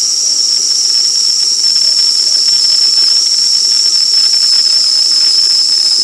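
Stainless-steel stovetop whistling kettle whistling at the boil: one loud, steady, high whistle over the hiss of steam, sinking very slightly in pitch. The glass electric kettle beside it is boiling at the same time.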